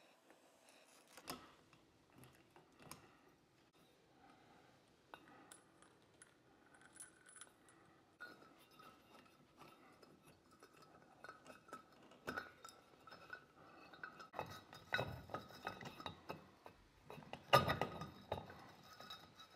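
Chandelier chain and ceiling-canopy hardware being handled: scattered small metallic clinks and clicks, getting busier and louder near the end.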